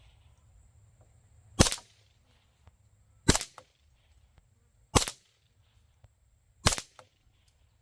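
Four single shots from a suppressed 9mm SD-style carbine firing 124-grain rounds through its suppressor can, evenly spaced about 1.7 seconds apart, each a sharp report with a short tail.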